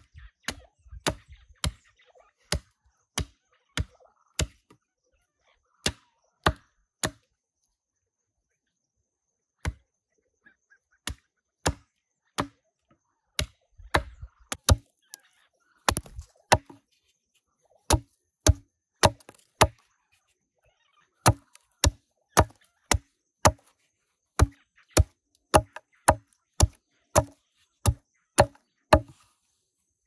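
Hatchet chopping a green branch on a log: a steady series of sharp chops, about one to two a second. The chopping pauses for about two seconds near the quarter mark, then picks up again and settles into a regular rhythm.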